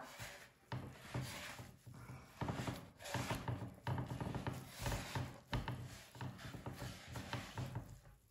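Hands kneading a soft egg dough wet with melted butter and rum on a wooden pastry board: irregular squishing and rubbing, with a couple of soft thumps of the dough against the wood about halfway through.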